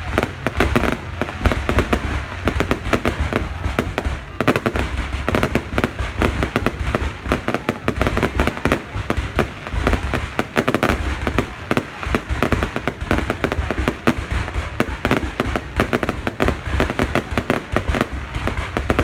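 Fireworks going off in a dense, continuous barrage: many bangs and crackles overlap with no pause, over a deep low rumble.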